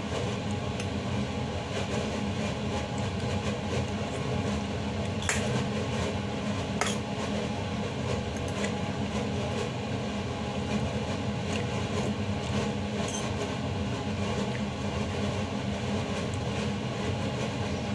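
A steady low machine hum throughout, with a few sharp clinks of metal cutlery against a stainless steel pot, the clearest two about five and seven seconds in.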